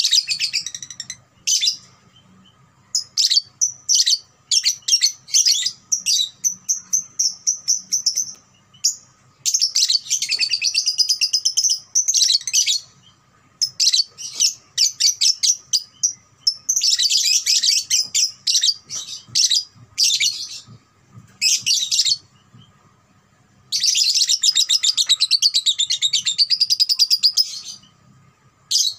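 Young Fischer's lovebird, about two and a half months old, singing its long, rapid, high-pitched chattering song (ngekek). The song comes in runs of a few seconds each, broken by short pauses.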